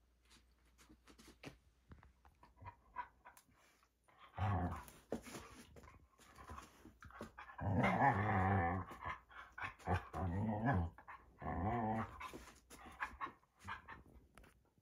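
Standard poodle play-growling in four bouts of about a second each, spread through the middle of the clip, with scattered light clicks and taps between them.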